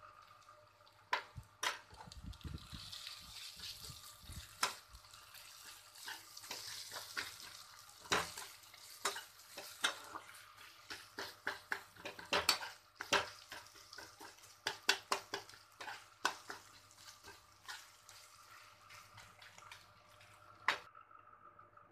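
Steel spatula stirring and scraping sliced onions and ginger-garlic paste frying in oil in a black kadai: a sizzle under many irregular clicks and scrapes of metal on the pan.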